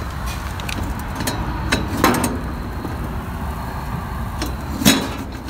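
Light metal clinks and knocks from the kerosene heater's steel burner chamber being handled, the two loudest about two seconds in and near the end, each ringing briefly, over a steady low rumble.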